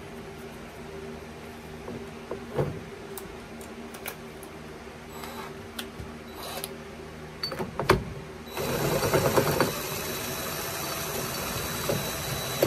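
A few knocks of metal parts being handled, then about eight and a half seconds in a DeWalt cordless driver starts up and runs steadily at speed, working a nut on a lift-kit strut's top mount.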